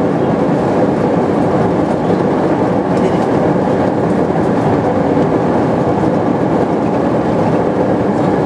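Airbus A321 after landing, heard inside the cabin: a loud, steady rumble of jet engines and rolling wheels on the runway as the airliner slows.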